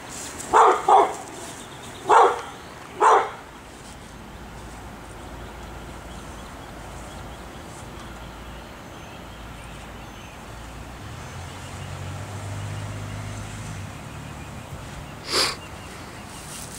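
A dog barking, four short barks in the first three seconds, with one more short sharp call near the end.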